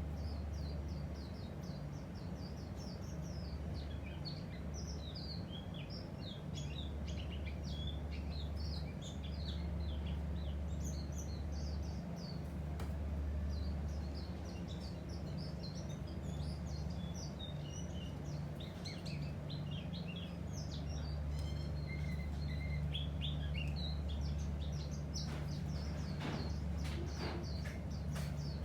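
Songbirds chirping and twittering in quick, overlapping short notes, over a steady low rumble. A few sharp clicks come near the end.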